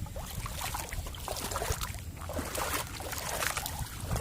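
Feet wading and sloshing through shallow water and mud, irregular splashes over a steady low rumble of wind on the microphone.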